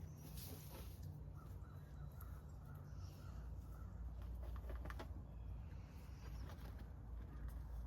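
Faint outdoor bird calls: a short series of soft wavering notes about a second in, with a few light clicks later, over a low steady rumble.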